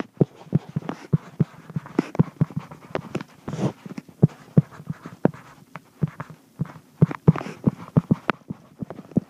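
Stylus tapping and clicking on a tablet touchscreen while handwriting, a few irregular sharp taps a second.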